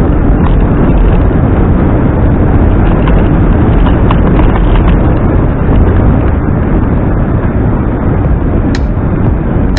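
Wind buffeting the microphone while riding a Zero 10X electric scooter: a loud, steady rush heaviest in the low end, with a couple of faint clicks near the end.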